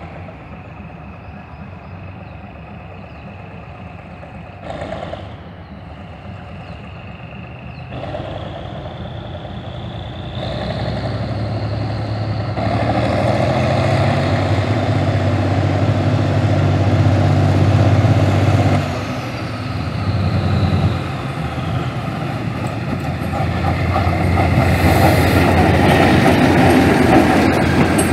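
Diesel-electric locomotive with a Cummins engine, a 1200-horsepower GE unit, approaching and coming alongside. Its engine grows steadily louder, dips briefly about two-thirds through, and wheels rumbling on the rails build up near the end.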